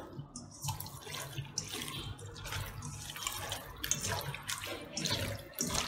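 Wet squelching of raw liver and lung pieces being mixed by hand in a stainless steel bowl, in short irregular squishes.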